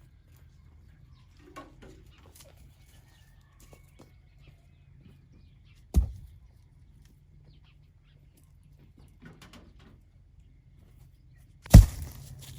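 Faint scattered clicks and taps, with one sharp knock about six seconds in and a louder knock followed by rustling near the end.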